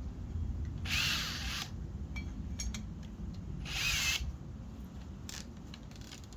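Metabo HPT DV18DC 18-volt cordless hammer drill run in two short bursts, about a second in and again near four seconds, each with a wavering whine.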